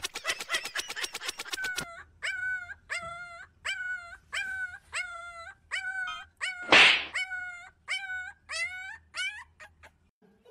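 A dog yipping and whimpering over and over, about a dozen short high-pitched yelps evenly spaced, with one louder noisy burst in the middle. A fast run of clicks comes first.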